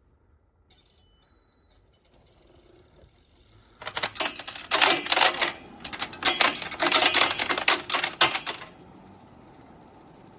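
A Midea U-shaped inverter window air conditioner clatters in a loud, rapid rattle for about five seconds, starting about four seconds in after a few faint electronic beeps. It then settles into a steady hum.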